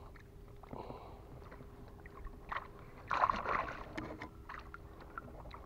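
Small waves lapping and sloshing close to the microphone, with a few light clicks and knocks and a louder patch of noise about three seconds in. A faint steady hum runs underneath.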